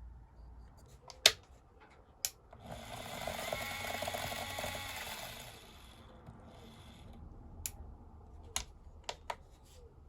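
Two sharp clicks, then a small mechanism whirring for about three seconds, then a few more sharp clicks near the end.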